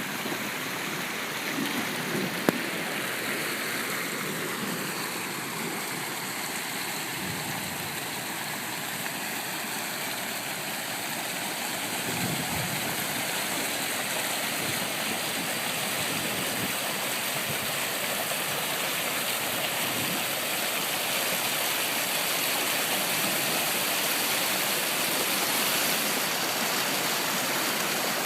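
Arroyo storm runoff flooding across a road: a steady rush of fast-running water that grows slightly louder in the second half.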